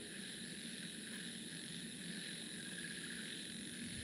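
Steady faint hiss of background room noise, with no distinct events.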